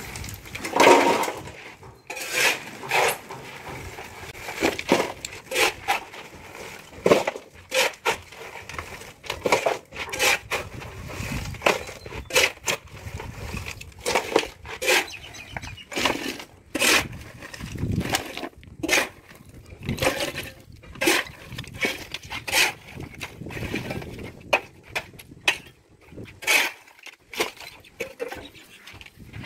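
Steel shovel scraping into a pile of broken concrete rubble and tipping it into a steel wheelbarrow, the chunks clattering and clanking against the metal tray. The strikes come irregularly, about one every second or so.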